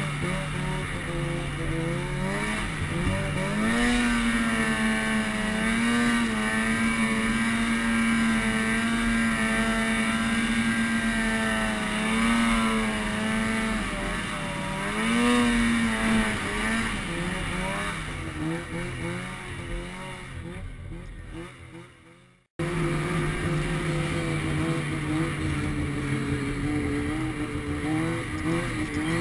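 Polaris 600 IQ snowmobile's two-stroke twin engine running along a trail, its pitch rising and falling as the throttle is worked. The sound fades and cuts off abruptly about three quarters of the way through, then comes back holding a steadier pitch.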